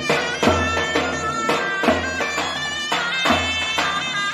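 Zurna and davul playing Turkish folk music together. The zurna carries a melody in held notes, and the davul beats a steady rhythm of deep thumps.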